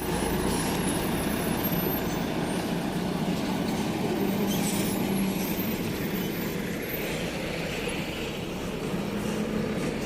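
A motor vehicle's engine running steadily, with a low hum under a constant rumble.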